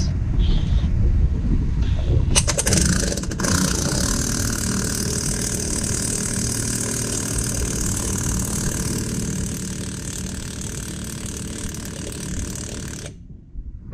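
Impact wrench driving the forcing bolt of a bearing press tool to push out a press-in front wheel bearing. It hammers in a quick run of sharp knocks about two and a half seconds in, then runs steadily and cuts off suddenly about a second before the end.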